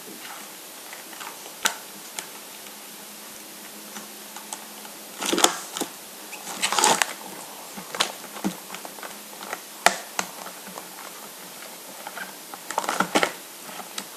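A set of pens and its packaging being handled: scattered sharp plastic clicks and a few short rustling scrapes, the loudest about five and seven seconds in and again near the end.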